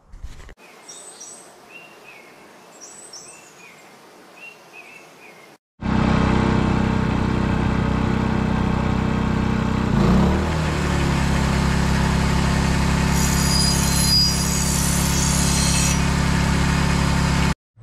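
Birds chirping over quiet outdoor ambience. From about six seconds in, a loud, steady machine drone with a low hum, whose pitch dips and resettles about ten seconds in. A brighter, higher-pitched noise rides on top of it between about thirteen and sixteen seconds.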